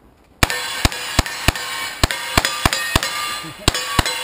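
A rapid string of gunshots: about ten shots in quick succession, two to three a second, starting about half a second in.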